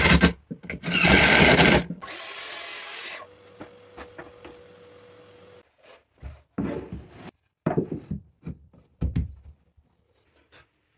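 Cordless impact driver driving screws into a plywood cabinet side, in two bursts within the first two seconds, the second the longer and louder. After that comes a high hiss for about a second, then scattered short knocks.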